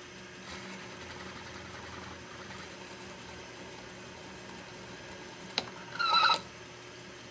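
Electric drill running steadily as a 3/16-inch bit cuts into lubricated forged metal. Near the end there is a sharp click and then a brief, loud, high squeal from the bit as it comes through the hole.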